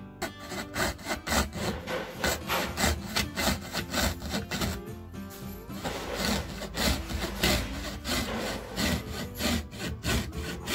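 Hand frame saw cutting through a thin MDF board in quick back-and-forth strokes, about two to three a second, rough-cutting the outline of knife handle scales.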